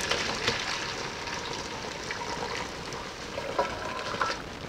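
Vegetable broth poured from a cooking pot into a large stainless-steel bowl: a steady splashing stream of liquid, with a couple of light clinks near the end.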